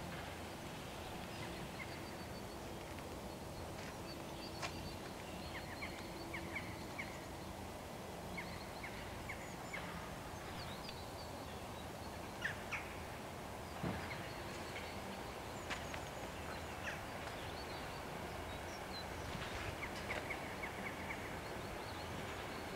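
Quiet outdoor ambience with small birds chirping, in scattered high calls and short runs of quick notes, over steady background noise and a faint hum. A couple of sharp clicks come near the middle.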